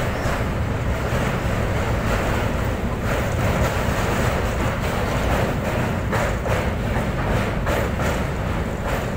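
Train running across a steel truss bridge, heard from an open door: a steady low rumble of wheels on the rails with wind buffeting the microphone, and a few short sharp knocks in the second half.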